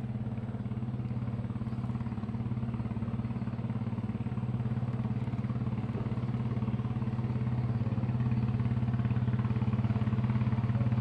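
Small boat engine running steadily at low revs, a constant low hum with an even pulsing beat, growing a little louder in the last few seconds.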